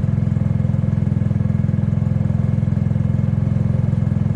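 Kymco People 250 scooter's carbureted single-cylinder engine idling steadily as it warms up from a cold start, with an even, rapid exhaust beat. The exhaust runs through a slip-on muffler whose gap to the down pipe has been sealed with JB Weld to stop a leak.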